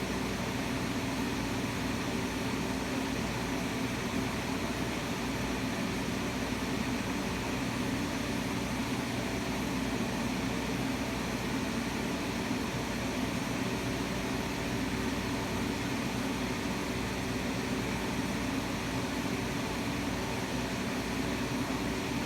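Steady hiss of radio static with a low, even hum, with no broadcast voice.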